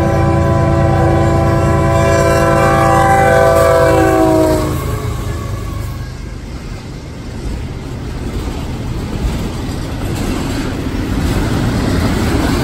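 A CSX freight locomotive's air horn sounds a long multi-tone chord that dips slightly in pitch and cuts off about five seconds in, as the locomotive goes past the crossing. After it comes the steady wheel-and-rail noise of double-stack container well cars rolling by, growing louder near the end.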